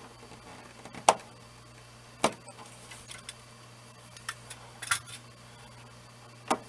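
Light clicks and rattles of insulated hookup wires being handled and gathered: a handful of sharp ticks, the loudest about a second in and just over two seconds in, over a low steady hum.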